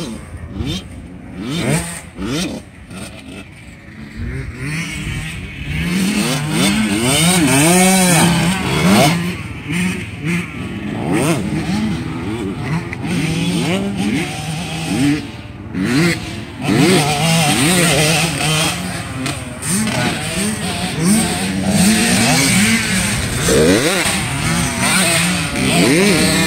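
Motocross dirt bike engines revving up and down through the gears as the bikes ride the track. Fainter at first, louder from about six seconds in as bikes come closer.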